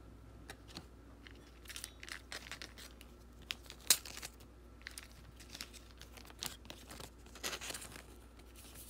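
Cardboard trading cards being handled by hand, with short scattered rustles and small clicks of the cards sliding and tapping against each other. There is a sharper click about four seconds in and more rustling near the end.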